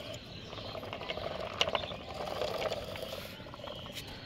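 Small electric motor of a DIY mini toy tractor running steadily as the tractor drives along, a faint even hum with a few light clicks.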